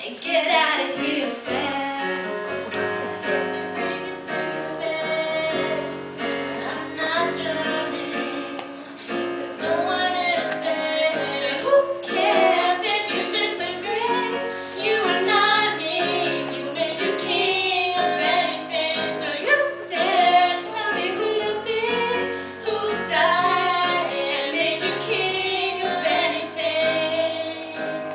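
A woman singing a pop song into a microphone, accompanied by chords on a Casio Privia digital piano.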